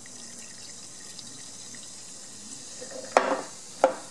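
Soda from a can of Sprite being poured into a pitcher over ice, a steady pouring hiss, with two sharp knocks near the end, just over half a second apart.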